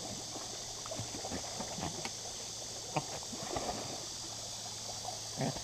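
Yorkshire terriers paddling and splashing as they swim through a shallow river, over the steady rush of the flowing water. The splashing is irregular, with a few sharper splashes about three seconds in and near the end.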